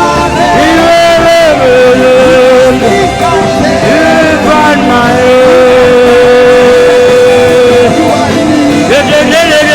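Live worship music: a voice sings long, held, gliding notes without clear words over a steady band accompaniment.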